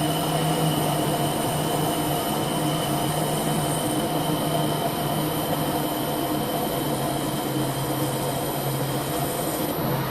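Holbrook C8 toolroom lathe running steadily under power, a low even hum with a thin high whine over it.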